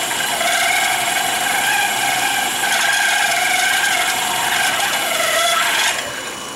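Half-inch drill bit boring into metal on a mini mill, chattering with a steady ringing tone, then stopping suddenly near the end. The chatter comes from cutting with too little lubricant.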